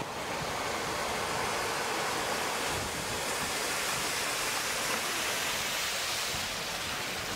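Steady rush of churned water from a small water-taxi boat's wake and propeller wash as it comes alongside the dock.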